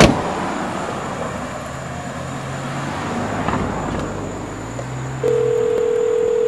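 Mobile phone ringback tone, the ringing heard by the caller while the other end has not yet answered: a steady electronic tone starts suddenly about five seconds in, over a low outdoor background hum.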